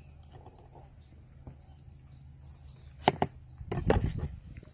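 Kitchen knife cutting through an aubergine onto a wooden chopping board: two sharp knocks about three seconds in, then a short run of chops near the end.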